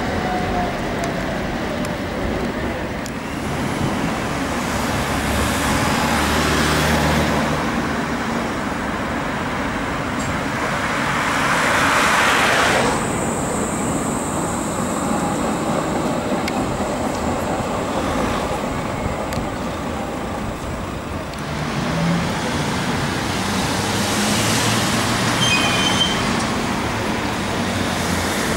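City street traffic noise with Tatra T3 trams running on their tracks. A loud passing swell comes about twelve seconds in.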